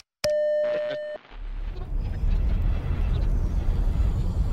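Intro sound effects: a steady electronic beep lasting about a second, then a steady low rumble.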